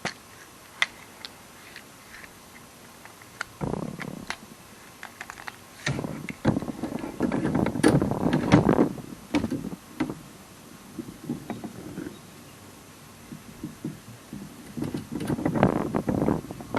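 Tools and mower parts being handled: a few light clicks, then irregular bursts of scraping and rubbing, loudest a few seconds in and again near the end.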